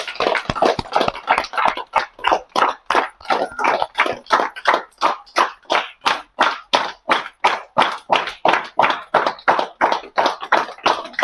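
A group of children clapping together in a steady rhythm, about three claps a second.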